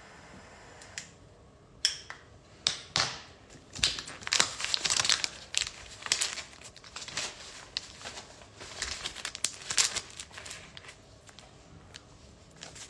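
A stack of hundred-dollar bills being handled and flipped through close to the microphone: crisp paper crinkling and snapping in an irregular run, starting about a second in and easing off near the end.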